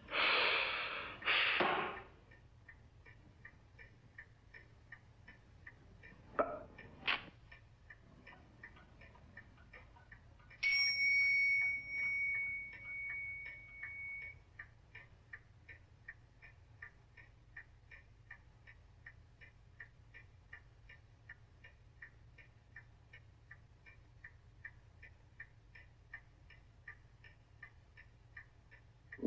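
A clock ticking steadily. Two loud, short noises come in the first two seconds, and about eleven seconds in a single bell-like ding rings out and fades over a few seconds.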